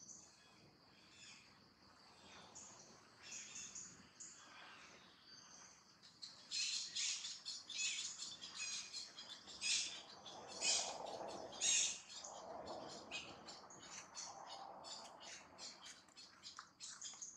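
Birds chirping in a quick run of short, high chirps that grows busier and louder about six seconds in.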